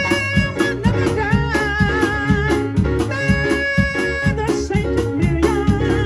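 Live band music through PA speakers: a man singing over a Nord Electro 6 stage keyboard, with a drum kit keeping a steady beat.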